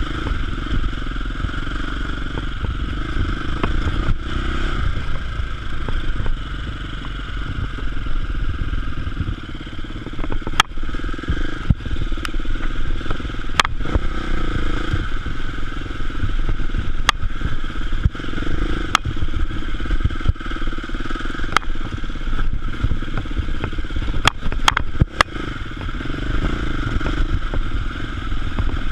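Enduro motorcycle engine running under changing throttle while riding over rough, rutted dirt, with several sharp knocks and rattles from the bike over bumps in the middle part.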